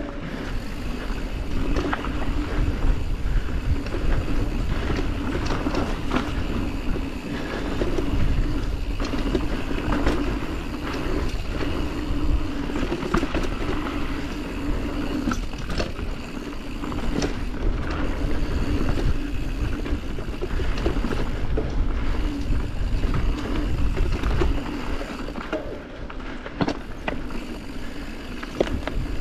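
Yeti SB140 full-suspension mountain bike ridden fast down a dirt singletrack: a continuous rumble of tyres on the trail with a steady low hum that comes and goes, and frequent sharp clicks and knocks from roots, rocks and the bike's drivetrain.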